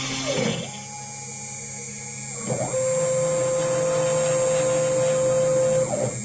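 Queenbee PRO CNC router's stepper motors whining as the axes move. The pitch dips and rises again at each change of direction: about half a second in, about two and a half seconds in, and near the end. In between there is a strong steady tone during a long move, with a constant high whine above.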